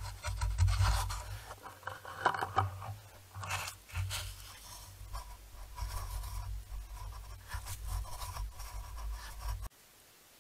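Scratchy rustling of dry fallen leaves over a low rumble on a trail camera's microphone, which cuts off suddenly near the end.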